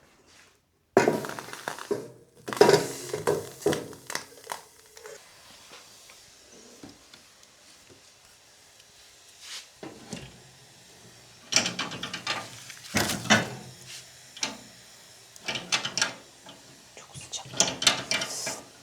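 Irregular knocks, thuds and clatters of hard objects being handled, coming in bunches with quieter stretches between.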